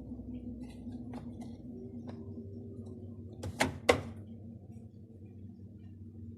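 Mabe top-load washing machine running with a steady low hum, with a few light clicks and two sharp knocks close together about three and a half seconds in.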